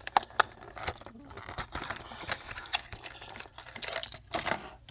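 Plastic lure packaging crinkling and clicking as a hard-bodied crankbait is taken out of it, with several sharp clicks.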